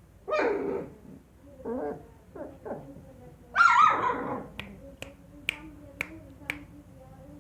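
Doberman puppies yipping and whining in short bursts, the loudest a little under four seconds in. Then five sharp clicks follow about half a second apart.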